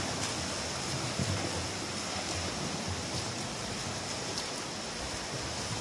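Swimmers splashing through the water in a pool, a steady wash of splashing from their strokes and kicks.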